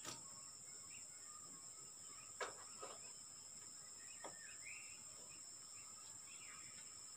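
Quiet outdoor ambience with a steady high insect drone and a short bird chirp, broken by a few sharp taps of bricklaying work, the loudest about two and a half seconds in and another just after four seconds.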